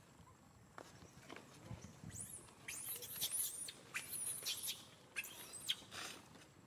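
Baby monkey squeaking: a quick run of short, high-pitched, arching squeaks from about two seconds in until shortly before the end.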